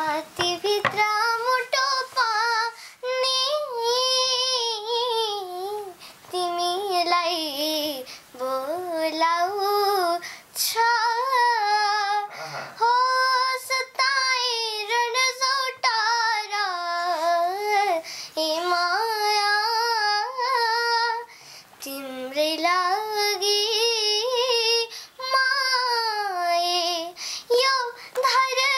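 A young girl singing solo and unaccompanied, a melodic song in phrases of a few seconds with wavering, ornamented pitch and short pauses for breath between them.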